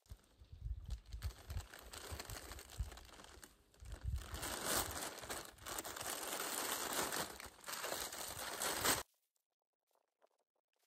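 Close rustling and crinkling with dull knocks underneath, stopping abruptly about nine seconds in.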